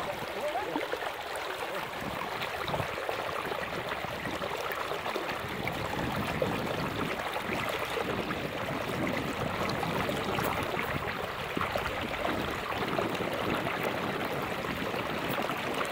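Steady rushing and lapping of shallow floodwater.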